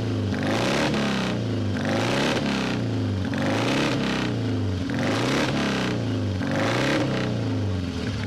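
BMW RS 255 Kompressor's supercharged flat-twin racing engine running while the bike stands still, blipped in repeated revs that rise and fall about once a second.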